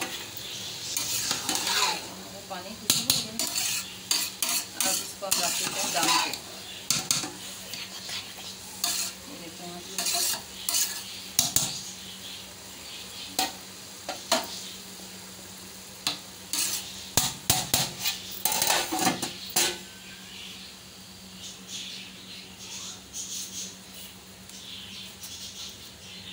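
A metal spoon stirring and scraping boiling rice in a large aluminium pot, with many clinks and knocks against the pot, before the pulao is covered to go on dum. The clatter is densest in the first two thirds and thins out toward the end, over a steady low hum.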